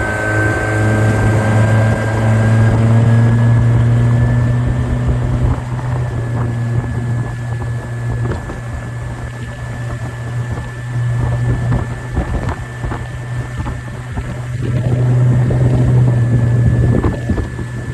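Suzuki 90 hp four-stroke outboard motor running under way: a steady engine hum with a thin high whine above it, swelling louder twice, with wind buffeting the microphone. The engine is running with full power now that a faulty fuel injector has been replaced.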